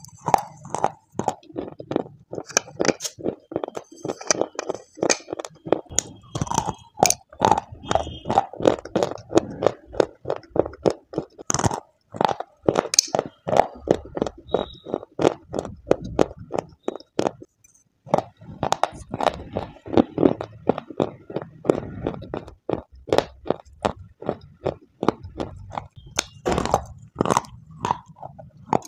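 Dry white clay sticks bitten and crunched close to the microphone: rapid, sharp crunches and chewing, with a short break a little past halfway.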